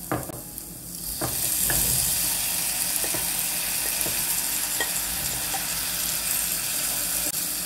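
Chopped tomatoes hitting hot oil in a non-stick frying pan of fried eggplant and onion: the sizzling swells up about a second in and carries on steadily as they are stirred in with a wooden spoon, with a few light taps.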